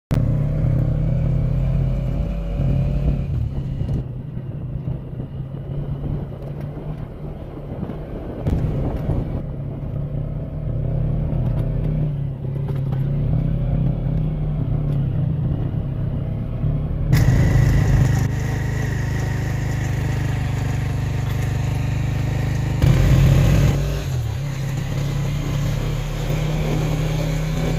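Motorcycle engine running steadily while riding. The sound changes abruptly about two-thirds of the way through, and a short louder surge follows soon after.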